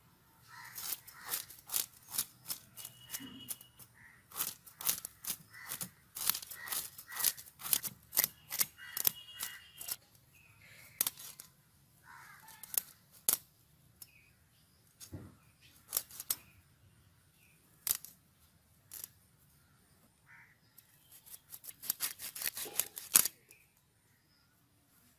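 Koi fish (climbing perch), gripped with ash, scraped against the edge of a boti blade to remove its scales: quick crisp scraping strokes in fast runs, sparser through the middle, with another fast run a little after twenty seconds.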